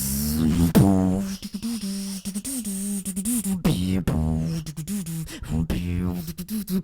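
Human beatboxing: a held, hummed vocal tone with several swoops in pitch, layered with rapid sharp clicks and percussive mouth sounds in a rhythm.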